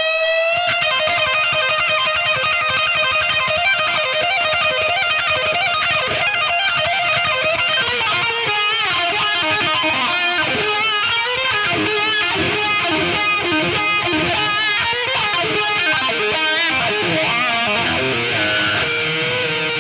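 A band playing an instrumental break led by electric guitar, with bending, vibrato-laden lead lines over the rhythm section.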